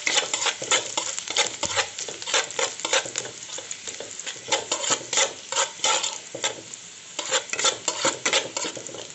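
Finely chopped garlic and ginger sizzling in hot oil in a kadhai, with a steel spoon stirring and scraping against the pan in quick repeated strokes, a few a second.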